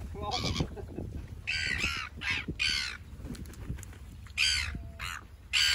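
A flock of black-billed gulls calling overhead: about eight short, harsh, raspy calls, bunched in the first three seconds and again near the end, over a low background rumble.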